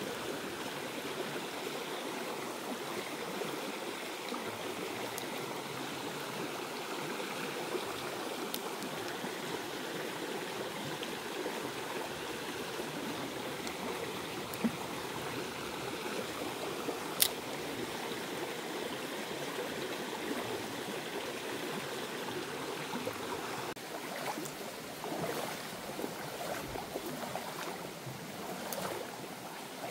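Small stream flowing steadily, with one sharp click about seventeen seconds in and a fainter one a little before it; near the end the water sound turns uneven with a few louder swells.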